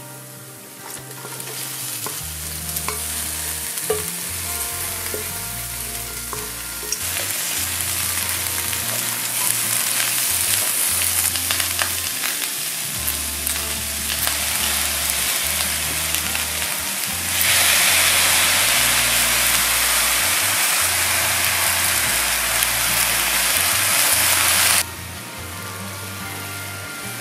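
Minced garlic and then cabbage sizzling in a stainless steel wok, stirred with a wooden spatula. The sizzle grows louder about a quarter of the way in, louder still past the middle, then drops off sharply near the end.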